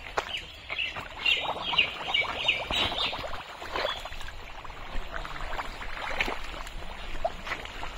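Wet mud squelching and splashing under bare feet and hands in a drained pond, a string of irregular sloppy splats and sucks.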